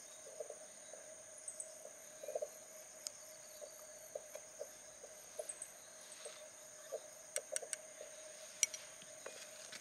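Spine of a pair of scissors scraping a ferrocerium fire-starter rod in about a dozen short, scattered strokes, shaving off metal powder to light. Insects trill steadily behind.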